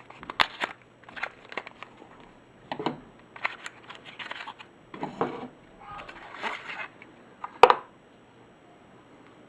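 Rustling and crinkling of packaging as a Swiss Army knife is unboxed and handled, with scattered small clicks and one sharp click near the end.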